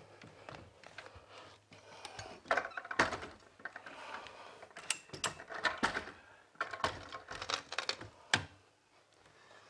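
Carpet being stretched with a power stretcher and pressed onto the tack strip at the wall: irregular bunches of clicks, scrapes and rustling, the loudest about three seconds in.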